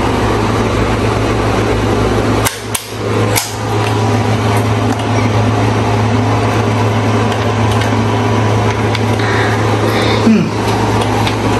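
A few sharp knocks of hard plastic blender parts being handled and set in place, two close together about two and a half seconds in and another a second later. They sit over a steady loud hum with a low drone that runs throughout.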